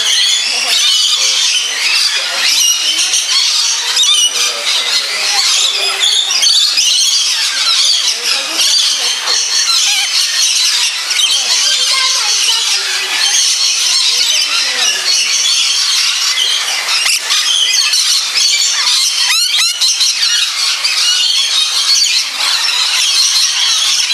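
Many lorikeets screeching and chattering at once, a steady din of shrill overlapping calls, with one sweeping call standing out about three-quarters of the way through.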